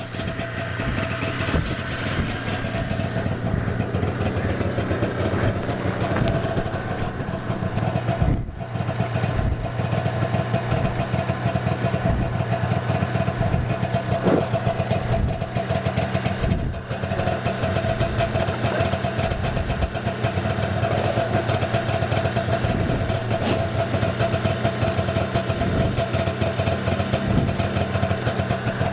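Gas-powered ice auger engine running at a steady idle.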